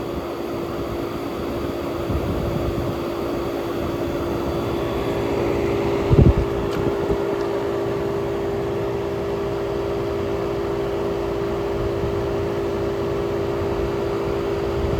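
1967 Chrysler Airtemp Imperial air conditioner running: a steady hum from its Tecumseh AJ compressor under the rushing of its fan. A brief low thump about six seconds in.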